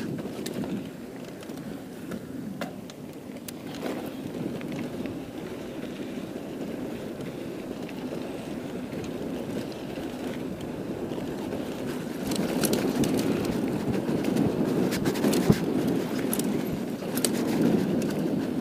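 Mountain bike rolling fast down a dirt singletrack: a steady rumble of tyres on dirt with scattered clicks and rattles from the bike, getting louder and busier about twelve seconds in.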